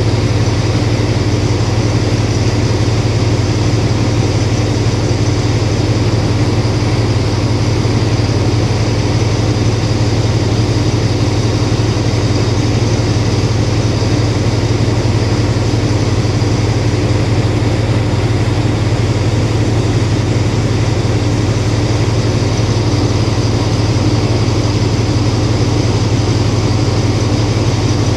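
Alsthom diesel-electric locomotive no. 4110 with its engine idling: a steady deep hum with a steady higher tone above it.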